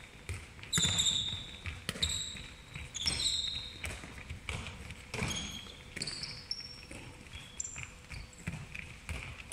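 Handballs bouncing and thudding on a wooden sports-hall floor at irregular intervals, mixed with the short high squeaks of sneakers on the floor. The sounds echo through the hall.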